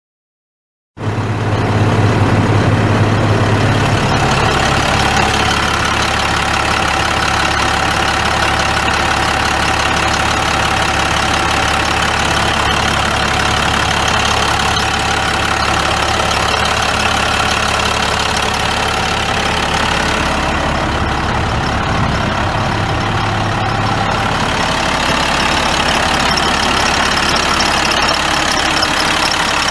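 International DT530 8.7-litre inline-six turbo diesel engine of a 2002 International F2554 dump truck idling steadily, starting abruptly about a second in.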